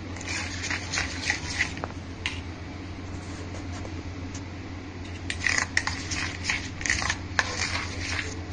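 Steel spoon scraping and clinking against a stainless-steel bowl while stirring a thick stuffing mixture, in two spells of quick ticks with a quieter stretch in the middle. A steady low hum runs underneath.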